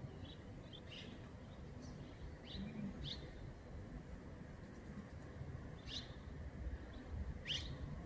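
Small birds chirping: short, high chirps scattered irregularly, the loudest two in the second half, over a steady low background rumble.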